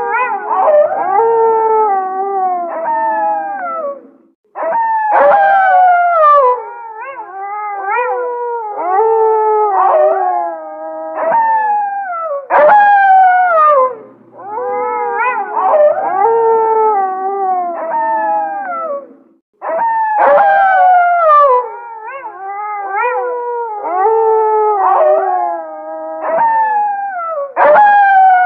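A pack of gray wolves howling in chorus: several long howls overlapping, each sliding down in pitch, with shorter rising and wavering calls over them. The chorus cuts out for a moment twice, then starts again.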